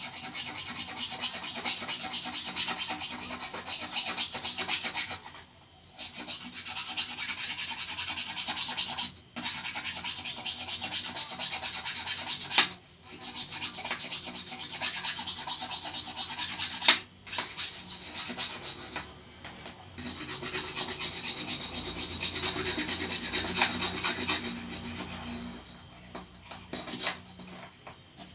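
Rusty metal being scrubbed with an abrasive by hand, a steady rasping rub in long runs broken by brief pauses every three to four seconds, thinning out near the end.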